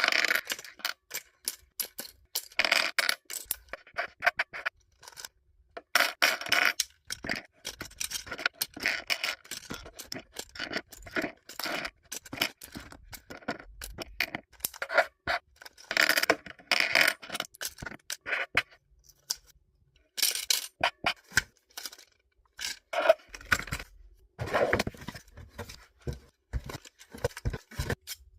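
LEGO bricks being pulled and pried apart by hand: irregular sharp plastic clicks and scrapes, with small loose pieces clattering against each other.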